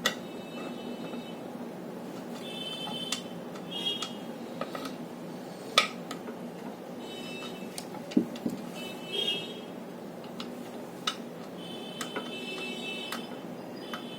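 Hand work on the old charging socket of a crane scale as it is unscrewed: scattered sharp metallic clicks and taps, with several short high-pitched squeaks from the tool and threads, over a steady low hum.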